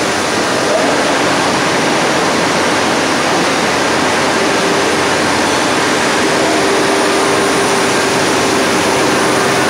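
Loud, steady roar of machinery on a gear-manufacturing shop floor, with a steady hum coming in about halfway through.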